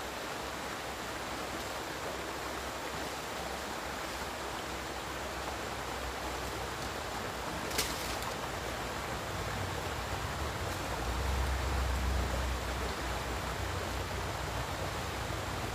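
Steady rush of a flowing river, with one brief sharp click about eight seconds in and a low rumble swelling around eleven to thirteen seconds.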